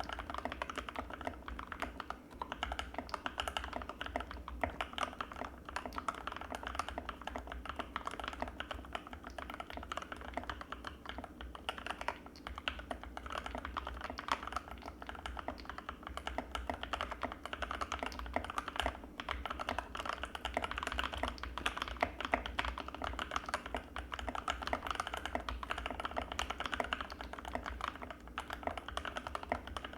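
Anne Pro 2 mechanical keyboard with Gateron Red linear switches being typed on fast and without pause: a dense, steady stream of key clacks.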